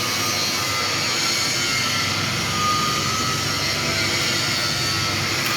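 TIG welding arc running steadily in a 2G (horizontal-position) weld: a constant, even hiss with no breaks.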